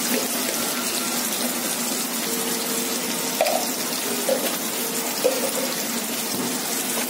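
Sliced onions sizzling in hot refined oil in a kadai: a steady frying hiss.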